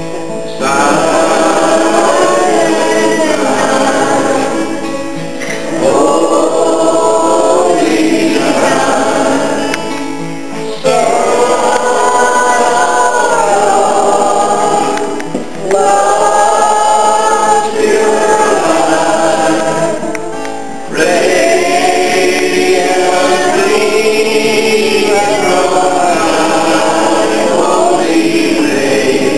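A choir singing a gospel hymn in long phrases of about five seconds each, with short breaks between them.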